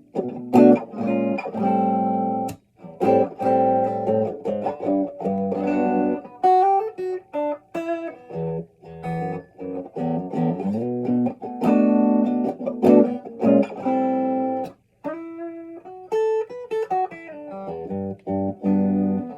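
Epiphone Les Paul Jr. electric guitar with a Seymour Duncan JB humbucking pickup being played. Stop-start chord hits alternate with single-note riffs.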